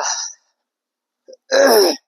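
A man's voice: the end of a spoken word, then a pause, then near the end a short breathy vocal sound whose pitch falls, like a sigh or a moan.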